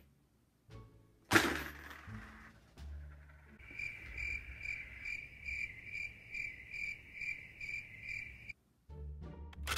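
Crickets-chirping sound effect: a steady, high chirping pulsing about twice a second that starts a few seconds in and cuts off abruptly near the end. It is the comic 'crickets' cue for an awkward silence. A short, loud rush of noise comes about a second in.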